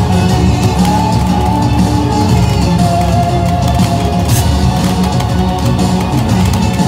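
Loud, continuous music played over a PA loudspeaker for a fireworks show.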